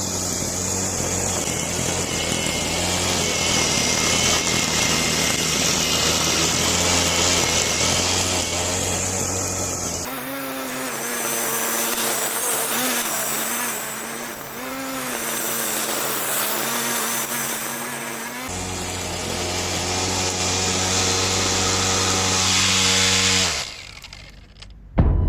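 Angle grinder rigged as a grass cutter, its motor running at high speed with a steady tone that wavers for several seconds in the middle as the load changes, then winds down with falling pitch near the end.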